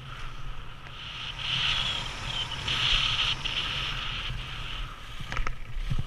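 Skis hissing and scraping over the snow, swelling louder in the middle, with wind rumbling on the microphone and a few sharp clicks near the end.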